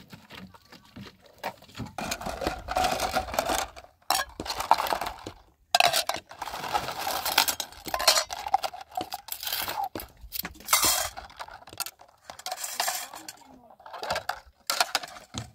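Metal dishes washed by hand in a pot of soapy water: repeated bursts of sloshing and scrubbing, with sharp clinks of metal bowls and pans against each other.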